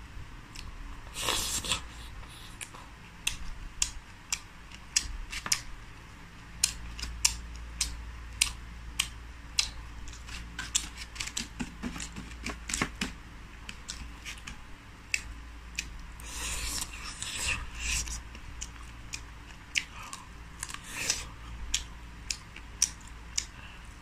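Eating crispy fried bird: irregular sharp clicks and crunches of chewing, with a few short rustling bursts from handling herb leaves and food.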